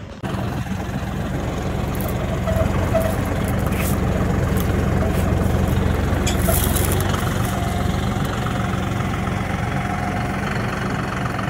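John Deere utility tractor's diesel engine running steadily, a low even hum.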